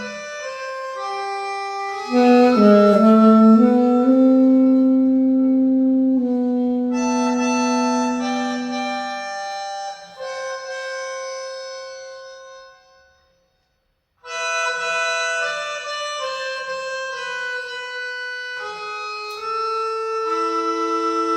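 Melodica (pianica) music with an alto saxophone playing along, sustained reedy notes and chords, with the low line bending in pitch early on. About two-thirds of the way through the music fades out and stops for about a second, then starts again.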